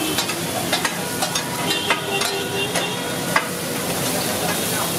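Goat brains sizzling in a hot pan while a metal spatula stirs them, clinking sharply against the pan about every half second over the steady frying hiss.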